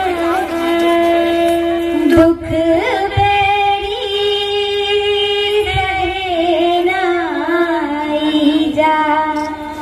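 Chhattisgarhi folk singing through a PA: a voice holds long, wavering melodic notes with ornamented turns, with a few low thumps underneath.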